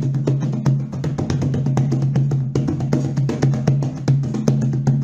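Music with a steady run of quick percussion hits over a held low bass note.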